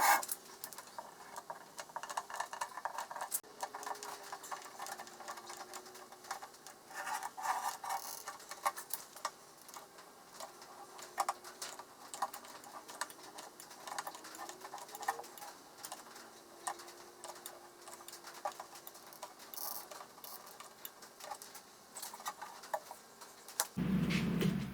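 Irregular small clicks, taps and scratching, as of small parts being handled and fitted by hand, with a low hum coming in near the end.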